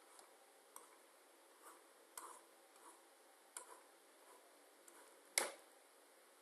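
Faint computer-mouse clicks, about ten of them at irregular intervals, as hatching strokes are drawn on screen, with one sharper, louder click near the end.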